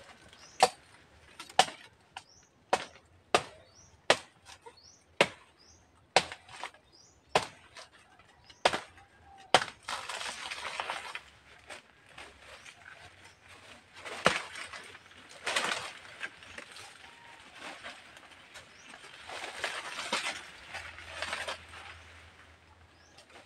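A bladed tool hacks into a banana plant's trunk with about ten sharp blows, roughly one a second. The trunk then gives way, and its leaves rustle and crash through the surrounding foliage in several bursts as the plant falls.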